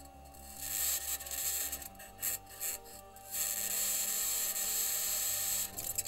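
Perseverance Mars rover driving over the Martian surface, heard through its own microphone: a rasping, scraping noise from its wheels and suspension working against the ground. A high-pitched scratching noise comes in about a second in and stops just before the end. It may be electromagnetic interference from one of the rover's electronics boxes, or the mobility system's contact with the surface. A few clicks come two to three seconds in, over a faint steady tone.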